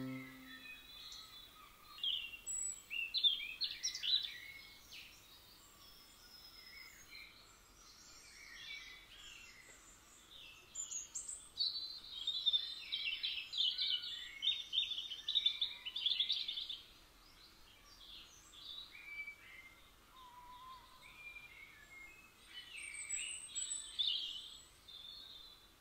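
Small garden birds singing: spells of quick, high warbling and chirping notes with quiet gaps between, after the last digital piano chord dies away at the very start.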